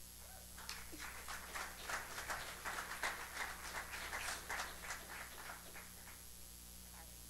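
Audience applause, faint and scattered, swelling about a second in and dying away before the end.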